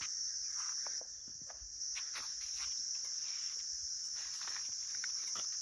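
Steady, high-pitched insect chorus, briefly quieter about a second in, with faint scattered ticks underneath.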